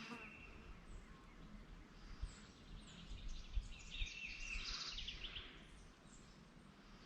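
Faint songbird calls and chirps, with a quick run of rapid trills about four seconds in, over a low background rumble.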